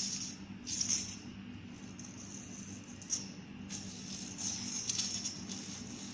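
Faint intermittent rustling and scraping, several short bursts, over a steady low hum.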